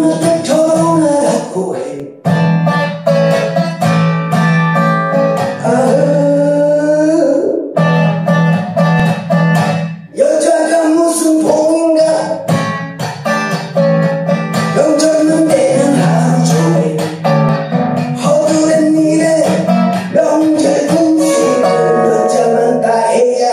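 A man singing a song while accompanying himself on an acoustic guitar, with a wavering sung melody over the guitar, pausing briefly about two and ten seconds in.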